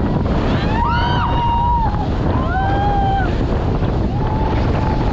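Heavy wind buffeting the microphone and water rushing past a towed inflatable ride at speed. Riders yell three long, drawn-out shouts over the noise.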